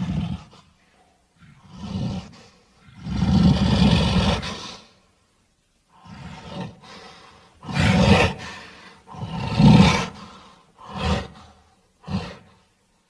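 Sound-designed Tyrannosaurus roars: a string of about seven separate calls of differing lengths with silent gaps between them, the longest lasting about two seconds.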